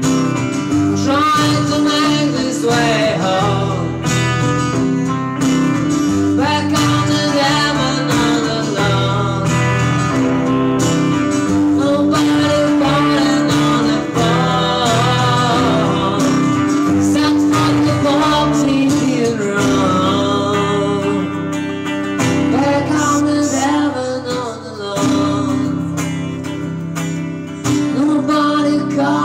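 Live song played on acoustic and electric guitar, with a voice singing over the guitars.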